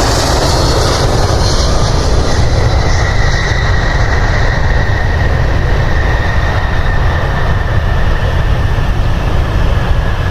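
Jet airliner's engines running loud and steady as it passes close, a deep rumble with a thin whine that comes in about two seconds in.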